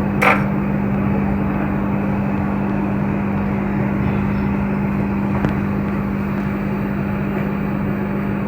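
Steady hum and airy whoosh of an electric fan or blower running, with a faint click near the start and another about five seconds in.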